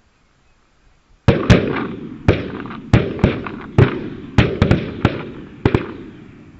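Volley of shotgun fire from several goose hunters: about a dozen sharp shots in quick, uneven succession over five seconds, beginning about a second in, each trailing off.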